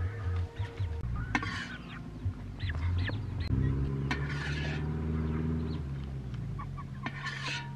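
Ducks and chickens calling with short cries and one drawn-out call in the middle. A metal ladle scrapes against a large metal wok three times as the cooked food is scooped out.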